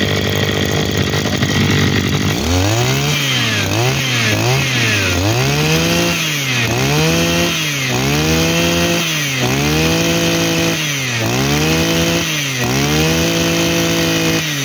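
Maruyama 26 cc two-stroke brush cutter engine running, then revved up and let drop back over and over, about nine times in a row. It runs smooth and even on each rev.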